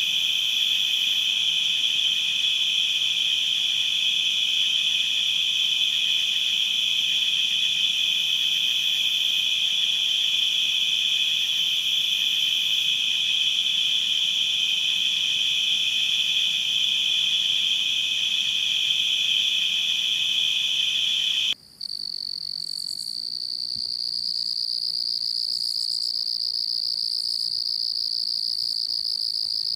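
Crickets chirping in a steady, unbroken chorus. About two-thirds of the way through it cuts off suddenly and a different, higher-pitched cricket chorus takes over.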